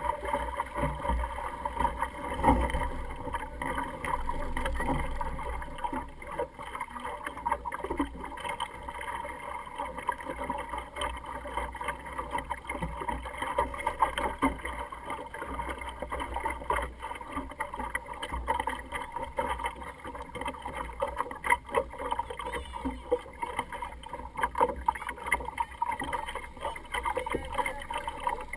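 Water lapping and slapping against a small sailing dinghy's hull as it sails, with a steady low wind rumble on the microphone and scattered small knocks and clicks throughout.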